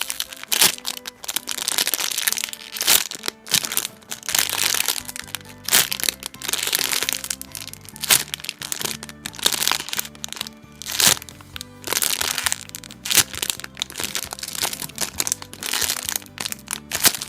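Background music with a low, stepping bass line, over repeated crackling and crinkling of plastic packaging being handled.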